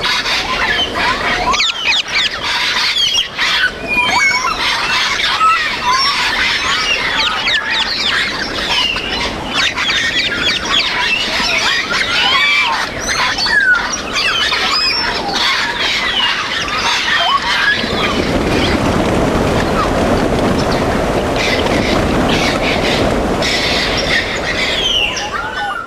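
Parrots calling: many quick overlapping whistles, squeals and squawks. From about eighteen seconds in, a denser, noisier chatter joins the calls.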